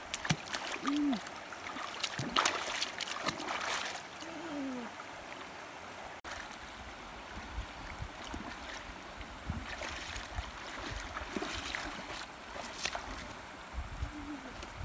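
Irregular splashing as a large carp is handled in shallow muddy water, then after a break, steadier sloshing and splashing as the fish is rinsed at the edge of a river.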